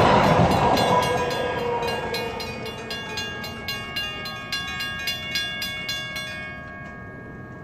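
A MetroLink light-rail train runs past and fades away over the first two seconds. The crossing's two WCH mechanical bells ring in quick repeated strokes through it. The bells stop about six and a half seconds in, once the train has cleared the crossing.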